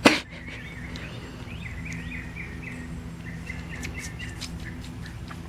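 Small birds chirping, a long run of short quick notes, over a low steady hum; a sharp knock right at the start.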